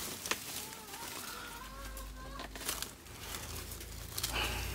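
A chicken giving a long, wavering call about a second in, with dry banana leaves crackling as the cut bunch is handled.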